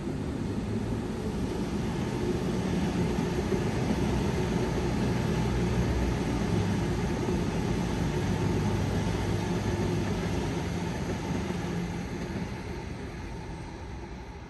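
Parramatta Light Rail tram passing by: a low rumble that builds over the first few seconds, holds, then fades away near the end.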